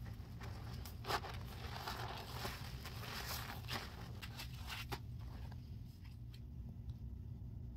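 Foam-soaked sponges squeezed by hand in a basin of dish soap and baking soda lather: wet squelching with dense crackling of bubbles, one sharp squelch a little over a second in. The squishing dies down about five seconds in, leaving only a few faint pops.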